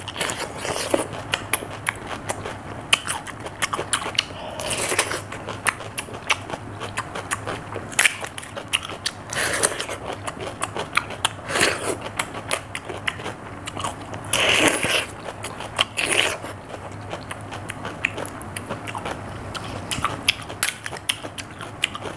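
A person biting and chewing raw cucumber: crisp, wet crunches and crackling mastication, with louder bites about 5, 10, 12, 15 and 16 seconds in.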